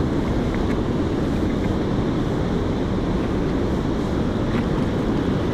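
Steady rumble of wind on the microphone, mixed with the rushing of moving river water. It holds at an even level throughout.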